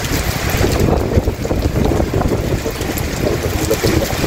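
Heavy rain falling on a wet paved yard, under a continuous low rumble.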